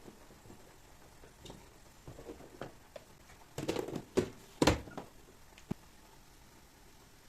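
Household objects being handled: a few light clicks, then a short cluster of knocks and clatters about halfway through, and one last sharp tap.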